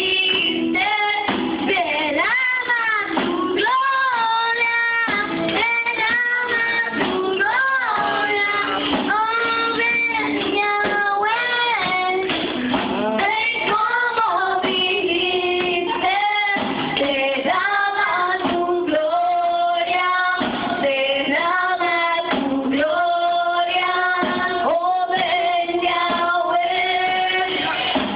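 Women's voices singing a worship song together, in long held melodic lines.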